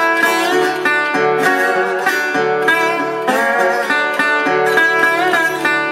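Metal-bodied resonator guitar fingerpicked and played with a slide: an instrumental slide blues tune, with notes that glide in pitch.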